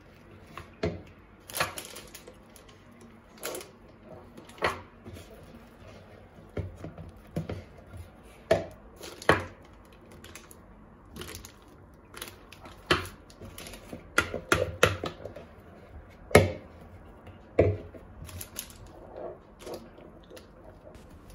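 A silicone spatula knocking and scraping against a mixing bowl and a glass as cream cheese frosting is spooned into a piping bag: irregular sharp clicks and knocks, with soft scraping and rustling between them.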